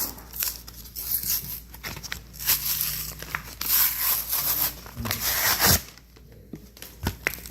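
Pokémon card pack wrapper being torn open and crinkled by hand: several rips and rustles over about six seconds, then a few small clicks.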